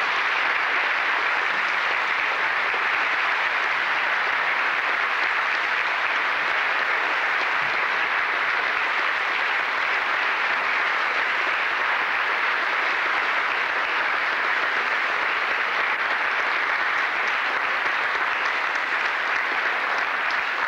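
A large audience applauding steadily, one long unbroken round of clapping.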